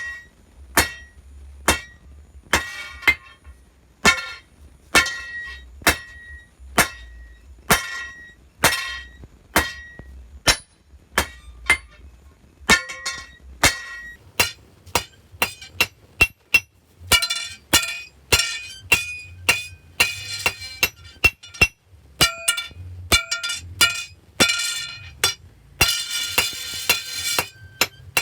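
Hammer striking steel on an anvil with a bright metallic ring after each blow, about one blow a second at first, then quicker in the second half, with a rapid flurry of blows near the end.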